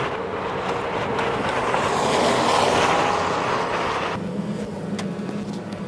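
Loud rushing wind noise that swells and then cuts off suddenly about four seconds in, leaving a steady low hum.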